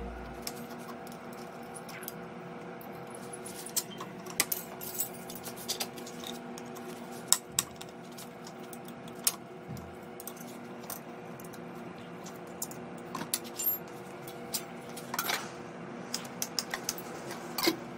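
Scattered clicks and light metallic clinks of small metal parts and hand tools being handled, over a steady low hum.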